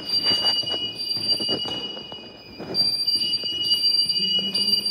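Fire alarm sounding during a detector test, in steady shrill tones; the highest tone drops out briefly about two seconds in and returns, with scattered knocks underneath.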